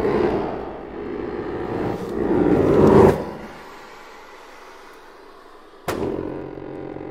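Chromatic button accordion playing dense, low chord clusters that swell with the bellows, the second swell cutting off abruptly about three seconds in. Near the end a sharp percussive hit sets off another sustained cluster that slowly fades.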